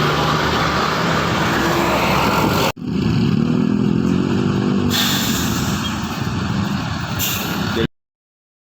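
Heavy bus engines and road noise in two separate passages, split by a sudden cut about three seconds in. In the second passage an engine note rises and falls. The sound cuts off shortly before the end.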